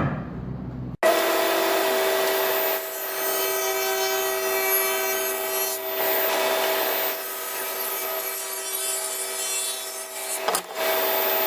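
Table saw running, its blade cutting a rabbet along a padauk board: a steady whine under the rough noise of the cut. It starts abruptly about a second in and briefly dips near the end.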